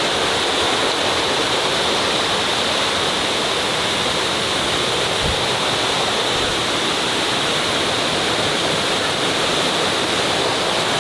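Waterfall pouring and rushing steadily.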